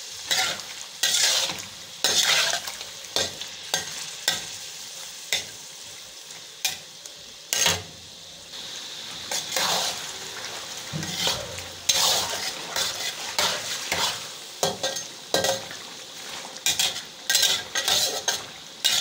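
Chicken pieces sizzling as they fry in oil in an iron karahi, with a spatula stirring and scraping against the pan in frequent, irregular sharp strokes over the steady hiss.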